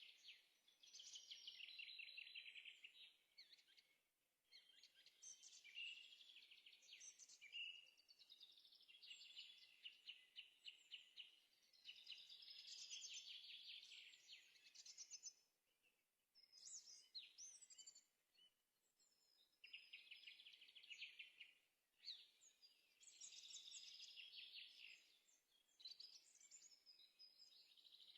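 Quiet songbird song: phrases of rapid trills and chirps, each lasting a few seconds, separated by short pauses.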